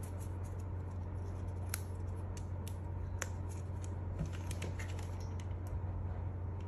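Small clicks and rustles of craft paper being handled and folded by hand, over a steady low hum.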